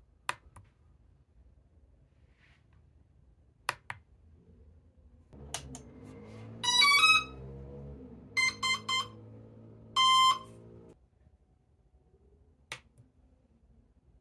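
A brushless motor's speed controller (ESC) sounding its power-up tones through the motor windings: a quick rising run of notes, three short beeps, then one longer beep, the signal that the controller is armed at zero throttle. A low steady hum runs under the beeps, and two sharp clicks come before them.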